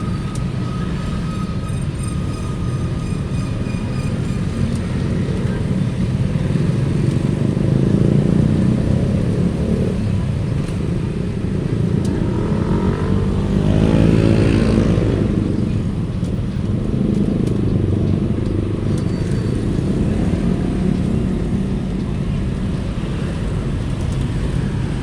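Steady roadside traffic rumble, with a motor vehicle, likely a motorcycle, passing close about halfway through, its engine swelling and then fading.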